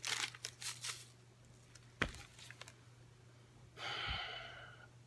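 Paper fast-food wrapper crinkling in hands for about a second, a single sharp click about two seconds in, then a soft breathy exhale lasting about a second near the end.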